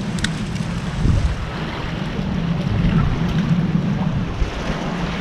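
Wind buffeting the microphone in a steady, uneven low rumble over the wash of ocean waves.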